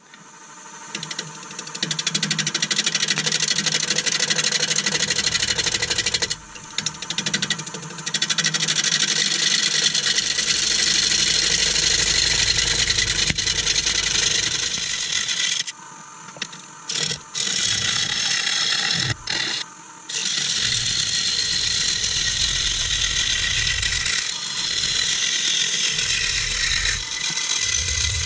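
Bowl gouge cutting into a dry beech bowl blank spinning on a Nova Saturn DVR lathe at about 750 RPM: a loud, steady hiss of shavings being cut that starts about two seconds in and breaks off briefly several times as the gouge comes off the wood, with the lathe's motor hum left in the pauses.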